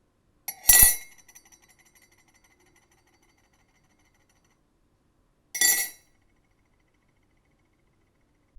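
A stainless steel spoon dropped into a ceramic mug, twice: each drop is a sharp clink with a ringing tail. The first drop, about a second in, is followed by a second or two of small rattling ticks as the spoon settles; the second comes about five seconds later.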